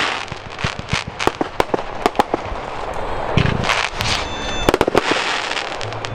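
Fireworks going off in a rapid, irregular series of sharp bangs and crackles, with bursts of hiss in between.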